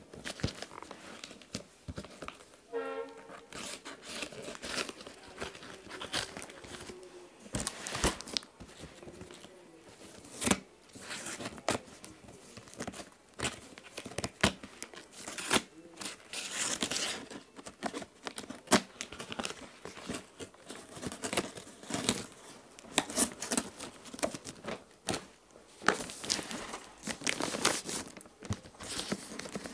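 Packing tape and cardboard of a shipping box being torn open by hand: irregular ripping and crinkling sounds throughout.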